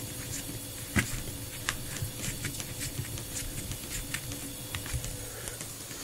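Small mini-fridge refrigeration compressor humming steadily, with scattered light clicks and taps from brass hose fittings being handled, the sharpest about a second in.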